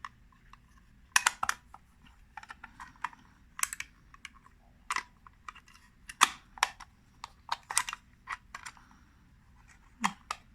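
Irregular clicks and small clatters of a miniature 127 film camera being handled and put back together, sharp clicks coming in little clusters every second or so.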